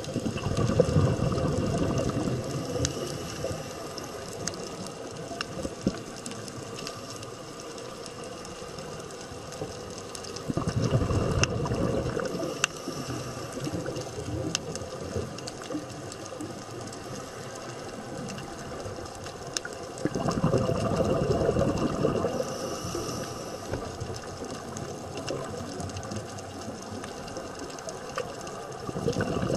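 Underwater recording: a scuba diver's exhaled bubbles rumble in bursts of two to three seconds, about every ten seconds, over a steady underwater hiss with scattered faint clicks.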